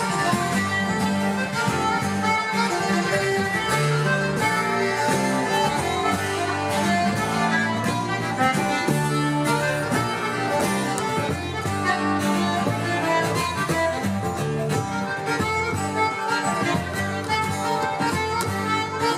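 Live Breton fest-noz dance music: a diatonic button accordion plays the tune over acoustic guitar and double bass, with a steady pulsing bass line.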